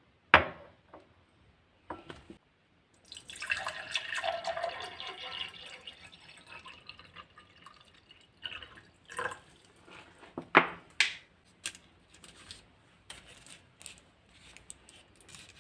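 Liquid being poured into a container for about three seconds, after a sharp knock near the start. Scattered light clinks and taps follow.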